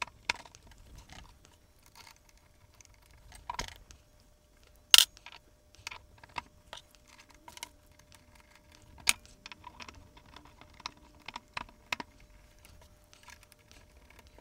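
Three-jaw lathe chuck being worked by hand onto the spindle of a PROXXON PD 250/E micro lathe, a tight fit: scattered light clicks and knocks of metal on metal, with a sharper click about five seconds in and another about nine seconds in.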